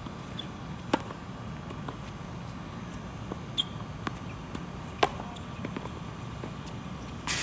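Tennis ball being hit by rackets and bouncing on the court in a rally: sharp pops, the loudest about a second in and about five seconds in, with fainter hits and bounces in between. A brief louder burst of noise comes near the end, over a steady low background hum.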